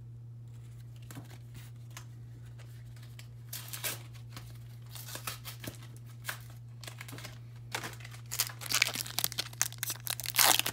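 Scattered light clicks, then from about eight seconds in a foil Pokémon booster pack crinkling loudly as it is torn open by hand. A steady low hum runs underneath.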